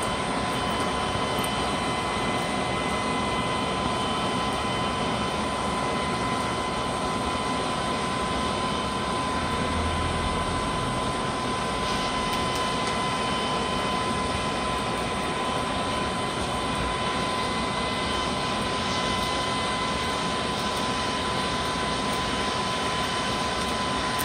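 Hairdryer used as the blower on a charcoal forge, forcing air in through the pipe under the fire: a steady whirring rush with a constant high whine.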